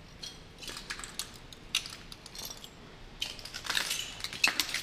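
Footsteps crunching over broken glass and debris: scattered light clinks and crackles, sparse at first and thicker in the second half.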